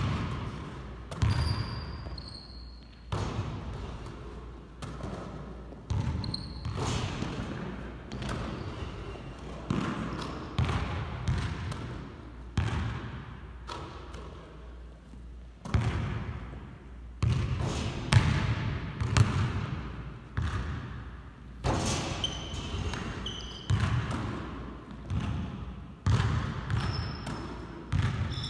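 Basketballs bouncing on a hardwood gym floor, one impact every second or two, each echoing through the large hall, with a few short high squeaks.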